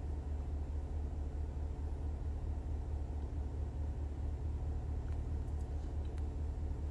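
Steady low rumble inside a vehicle's cabin, a constant drone with no rise or fall.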